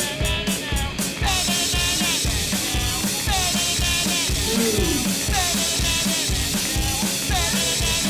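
Background rock music with a fast, steady drum beat.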